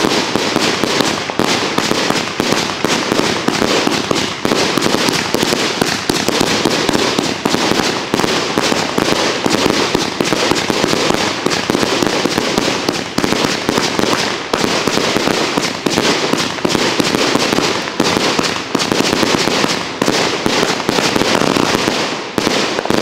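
Consumer multi-shot firework cake firing aerial shots in quick succession: a dense, continuous crackling and popping of bursting stars, starting to die away at the very end.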